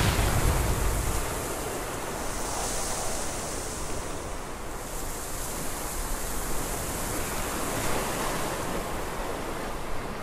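Ocean waves breaking and washing over a rocky shore, a steady hiss of surf that swells and ebbs every few seconds. The tail of a low boom dies away at the start.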